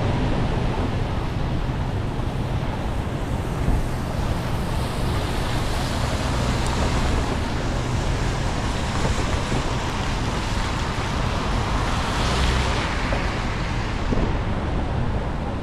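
Steady rush of wind buffeting an action camera's microphone on a moving electric scooter, with a constant hiss from the rain-wet street under it.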